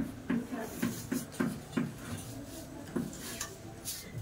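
Chalk writing on a chalkboard: an irregular series of short knocks as each digit and stroke is tapped onto the board, with light scraping between them.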